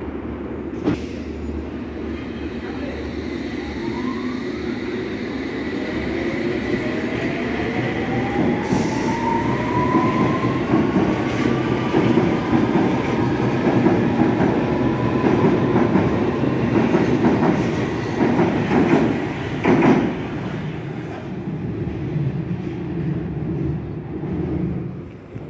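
London Underground train pulling out of the platform. Its traction motors whine, rising in pitch as it gathers speed, over a steady rumble, with a run of wheel clicks over rail joints near the end as it clears the station.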